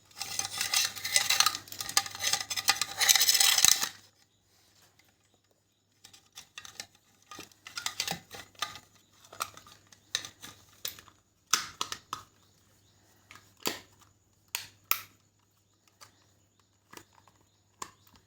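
Small metal and plastic parts of an electrical plug board being handled: a few seconds of dense scraping and rattling, then after a short pause a run of scattered small clicks and taps.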